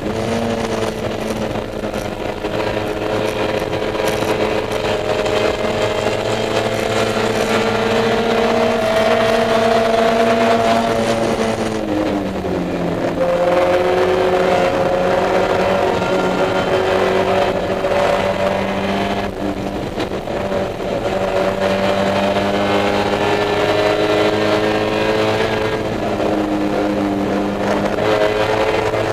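Spec Miata's four-cylinder engine heard from inside the cabin while racing, under hard throttle. Its pitch climbs steadily for about ten seconds, falls about twelve seconds in, then climbs again with smaller dips later on.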